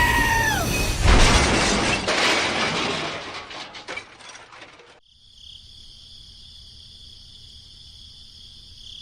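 A crash like something shattering about a second in, its noise fading away over about three seconds, followed by a steady, fainter high-pitched whine.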